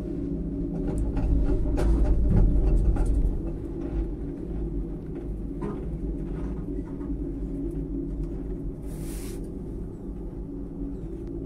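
Steady low rumble and hum of a moving ropeway cabin, with wind gusting on the microphone from about one to three seconds in, a few light knocks, and a brief hiss about nine seconds in.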